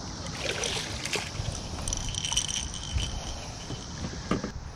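Soft rustles and short knocks from a landed catfish being handled in a boat, over a steady background hiss with insects chirping.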